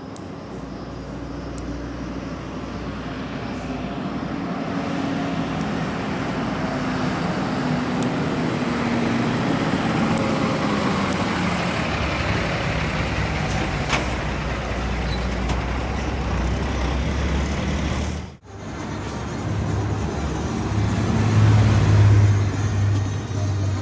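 A motor vehicle's engine running close by, growing louder over the first few seconds. The sound cuts out sharply about eighteen seconds in and comes back with a deeper throbbing.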